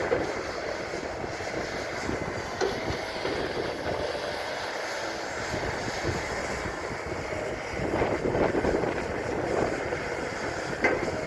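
Excavator's diesel engine running steadily as the machine digs, growing louder for a couple of seconds about eight seconds in.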